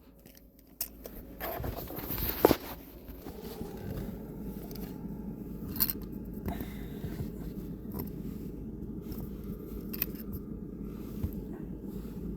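Turn signal stalk parts being handled and fitted by hand: scraping and rustling, loudest about two seconds in, then a few light clicks, over a steady low hum.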